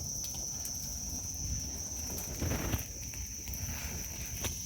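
Crickets chirping steadily in a high band, over scattered faint pops and crackles from a wood bonfire that has just caught. There is a short soft swell of noise about halfway through.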